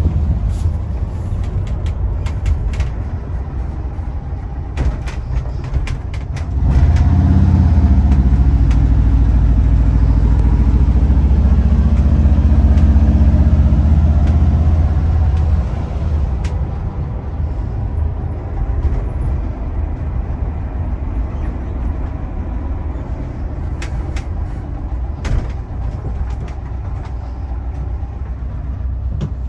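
Volkswagen Bus engine and road noise heard from inside the cabin while driving. It is a steady low rumble that grows louder about six seconds in, holds for about nine seconds, then eases back, with scattered short clicks and rattles.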